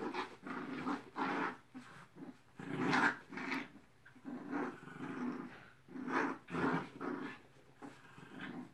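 A dog and a puppy play-growling while they tug at a toy, in uneven rough bursts that come and go every second or so, loudest about three seconds in.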